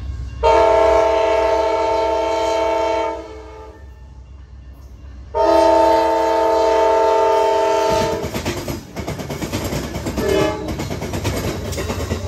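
Amtrak GE P42DC locomotive's multi-chime air horn sounding two long blasts and then a short one, the opening of the long-long-short-long crossing signal. From about the middle on, the passenger train's wheels rattle and clatter over the track and diamond as it passes.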